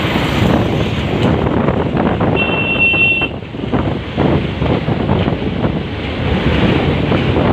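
Wind buffeting the microphone over the rumble of a moving vehicle, with a brief high-pitched beep about two and a half seconds in.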